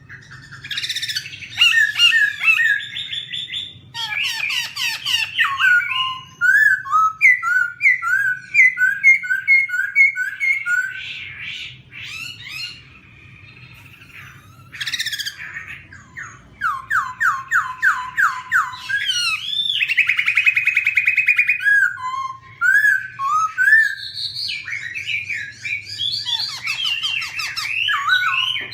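Black-throated laughingthrush singing a loud, varied song of whistled phrases, fast repeated notes and trills, in bursts separated by short pauses.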